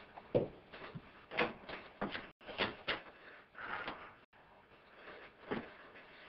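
A run of sharp knocks and clatters, about a dozen in the first three seconds and a couple more later, with a short rustling scuffle a little before the four-second mark.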